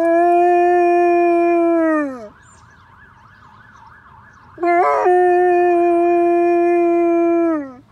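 German Shepherd howling at a siren: two long, steady howls, each sliding down in pitch as it ends, the second with a brief wobble at its start. Between the howls a faint fire truck siren warbles quickly.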